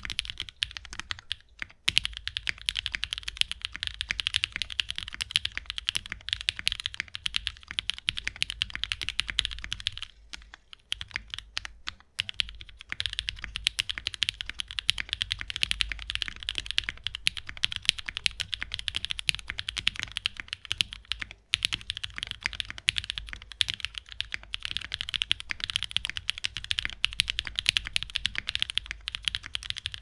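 Fast, continuous typing on a Dropbear60 60% mechanical keyboard with lubed Black Cherry Pie linear switches (nylon bottoms, Kailh Black stems, Cherry tops) on an FR4 plate, GMK keycaps and a polycarbonate case. A dense run of keystrokes that thins out briefly near the middle.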